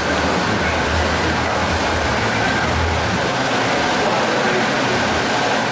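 Steady rumble and hiss; the deepest part of the rumble fades about three and a half seconds in.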